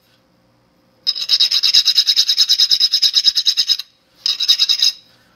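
Hand file rasping across a metal coilover part in quick, high-pitched strokes, smoothing down marks chewed into it by the vise. One long run of filing starts about a second in, and a short second run follows near the end.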